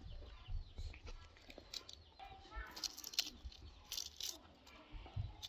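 Dry onion skins rustling and crackling as they are peeled off by hand, in short papery bursts over a low wind rumble on the microphone.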